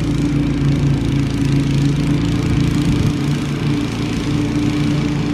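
Toro TimeMaster walk-behind mower's Briggs & Stratton engine running steadily while it cuts grass, a continuous low drone.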